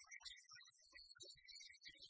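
Near silence, with only faint, garbled traces of sound.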